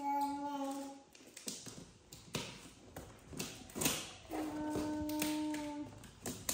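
Scissors clicking and scraping on packing tape over a cardboard box, in a run of short, sharp taps. A steady pitched tone is held for about a second at the start and again for about a second and a half some four seconds in.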